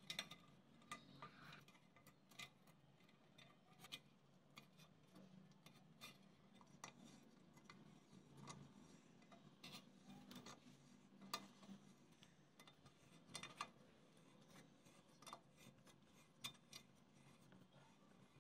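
Faint, irregular metallic clicks and ticks as a small two-jaw puller is fitted to a fan's steel blade hub and its threaded screw is turned.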